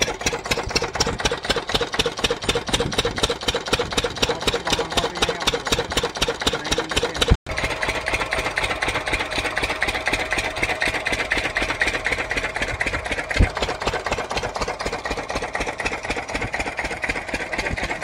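Field Marshal single-cylinder diesel engine running steadily with a fast, even beat while it drives a centrifugal water pump by a flat belt. The sound drops out for a moment about seven seconds in, and there is a single sharp knock near the thirteen-second mark.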